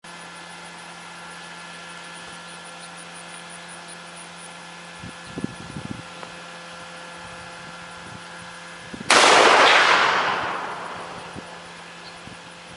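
A single shot from a .50 caliber sniper rifle: one sudden big boom about nine seconds in, its report rolling away over the next two to three seconds.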